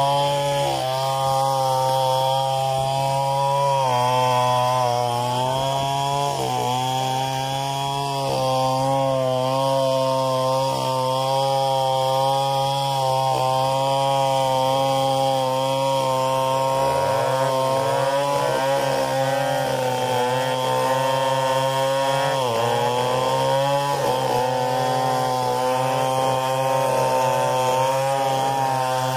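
Stihl 070 two-stroke chainsaw ripping lengthwise through a log in a freehand milling cut, running steadily under load. Its pitch dips and wavers several times as the bar bogs and recovers in the wood.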